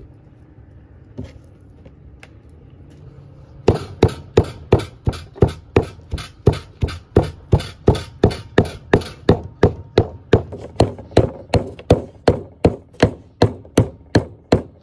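Heavy meat cleaver chopping goat meat into mince on a wooden log chopping block: steady, evenly spaced strokes at about three a second, starting about four seconds in.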